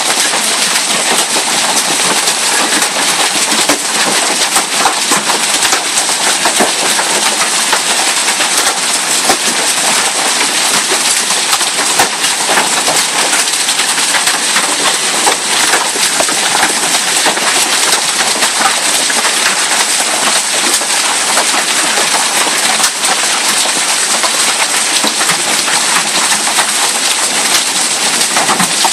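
Hailstones pelting down in a heavy hailstorm: a dense, steady clatter of sharp ticks and pops over a loud rushing hiss.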